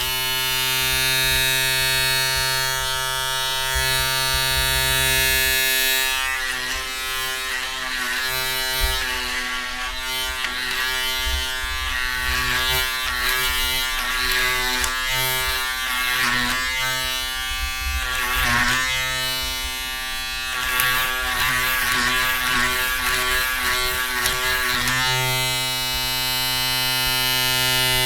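Electric shaver running. It buzzes steadily for about the first six seconds and again over the last few seconds; in between, while it is in use, the buzz goes uneven and wavering.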